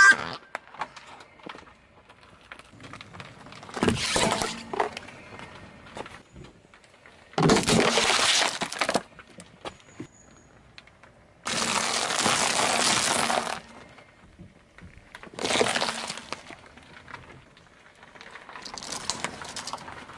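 A car tyre slowly rolling over and crushing objects one after another on asphalt: a short rising squeak from a rubber squeaky toy at the very start, then five separate bursts of crunching and cracking, such as waffle ice-cream cones breaking, each lasting from half a second to two seconds.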